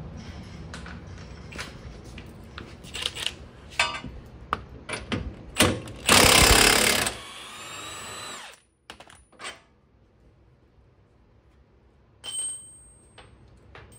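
Cordless impact wrench hammering for about a second as it breaks loose the 21 mm vertical link bolt on the rear suspension knuckle, then its motor whirring down. Before that come clicks and knocks of the socket being fitted onto the bolt, and a short second burst from the wrench comes near the end.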